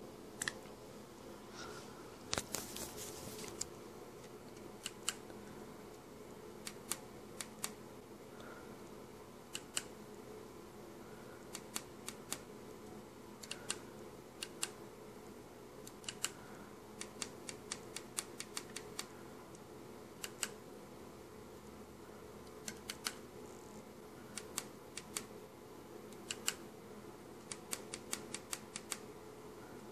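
Sharp clicks of small push-buttons being pressed on a homemade microcontroller board, sometimes singly and sometimes several in quick succession, over a steady low hum. A brief burst of rustling handling noise comes about two and a half seconds in.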